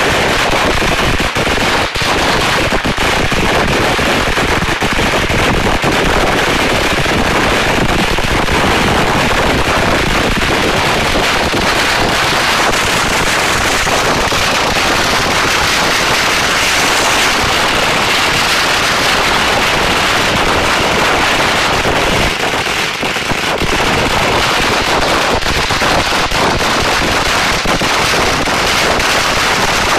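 A long chain of firecrackers laid on the ground going off in a continuous, rapid stream of bangs. It thins briefly once, about three quarters of the way through.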